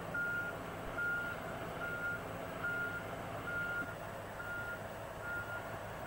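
Travel alarm on a Komatsu tracked hydraulic excavator, beeping about seven times at an even pace of a little more than one beep a second, over the low steady drone of its engine as the machine crawls along on its steel tracks.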